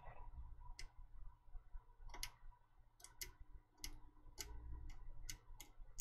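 Faint, irregular ticks and scratches of a pointed knife blade scraping the solder mask off a copper trace on a circuit board to expose bare copper.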